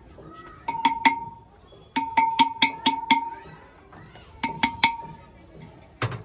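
Fired clay pots (matkas) being tapped and knocked by hand, each strike giving a clear, ringing tone: three taps, then a quick run of about seven, then three more, with a duller knock near the end. Potters judge a fired pot by this ring: a clear ring shows a sound, uncracked pot.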